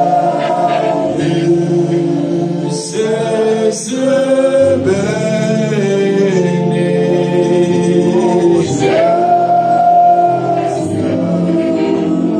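A group of voices singing a worship song with instrumental accompaniment, in long held notes.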